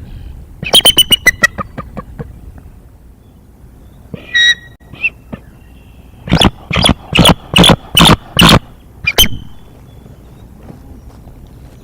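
Bald eagles calling: a rapid high-pitched chatter about a second in, a short call a little after four seconds, then a run of seven loud, evenly spaced calls.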